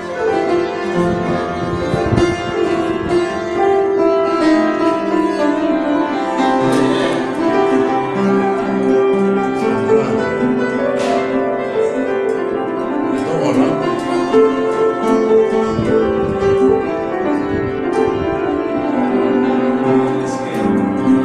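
An oud, a mandole and an upright piano playing a melody together live, with quick plucked notes over sustained piano notes.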